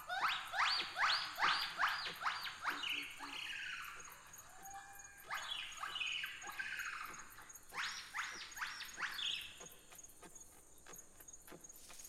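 Recorded jungle ambience: quick series of rising whistled bird calls, about three a second, one run at the start and another from about the middle, over a steady high insect trill.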